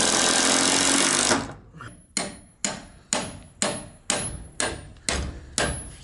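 A cordless drill runs for about a second and a half, driving a screw into the wooden bracing. Then a hammer drives a metal stake into the ground, eight blows about two a second, each ringing briefly.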